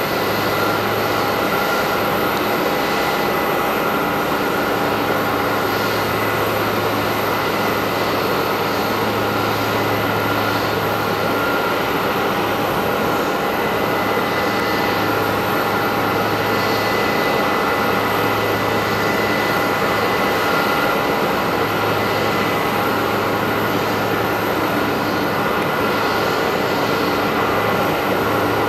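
Parked Airbus A320 jet airliner running steadily at the gate: a constant rush with several steady high whining tones over it, and a low hum that drops out now and then.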